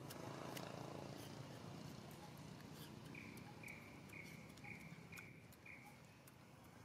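Faint outdoor ambience with a short, high call repeated about twice a second, six times, in the second half, and scattered light clicks.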